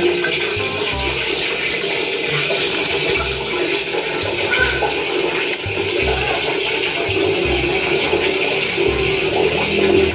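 Steady rush of running water in a small tiled bathroom.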